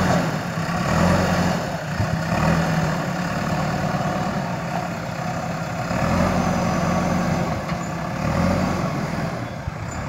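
JCB 3DX backhoe loader's diesel engine working as the front bucket pushes soil. Its note swells and eases several times as it takes load.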